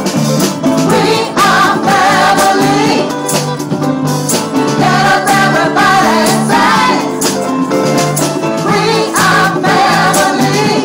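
Live band music: several women singing together over keyboard and drums, with a tambourine shaken and struck in a steady beat.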